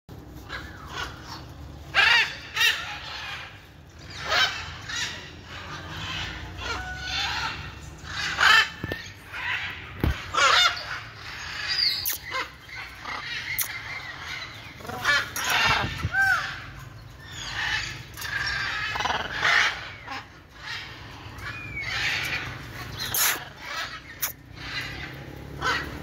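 Macaws squawking, many loud calls in a row, a few with short rising-and-falling pitch sweeps. The loudest calls come about two and eight seconds in.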